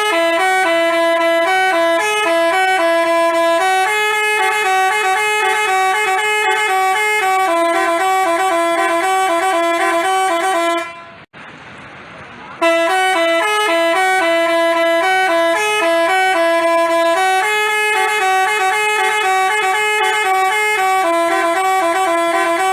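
Basuri telolet bus horn, a multi-tone musical horn, playing a melody of stepped notes. It plays in two long phrases with a break of about a second and a half halfway through.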